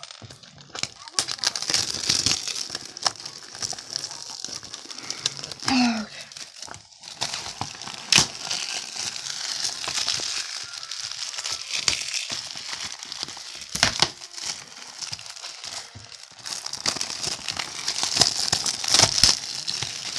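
Crinkling and rustling of a DVD case and its packaging being handled, with scattered sharp clicks and taps.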